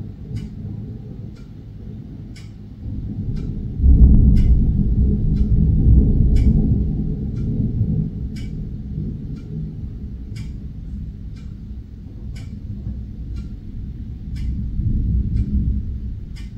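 Rolling thunder: a deep rumble that swells suddenly about four seconds in, dies away slowly, then swells again near the end. A steady, regular ticking runs underneath.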